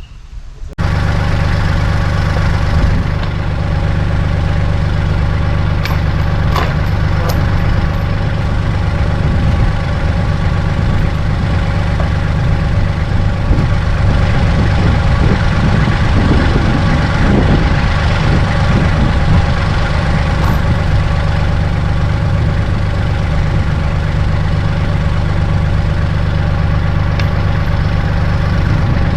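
Tractor's diesel engine running steadily at idle, close by, coming in abruptly about a second in.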